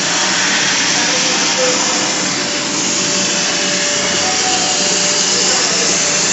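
High-speed candy packing machine running: a loud, steady whirring noise from its motors and feeders.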